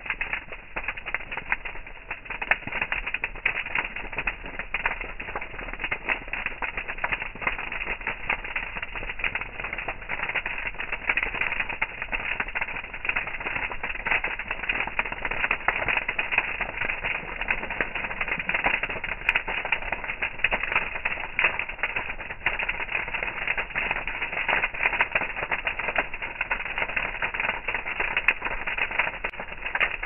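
Bonfire of leafy branches burning, with dense, irregular crackling and popping from the flames.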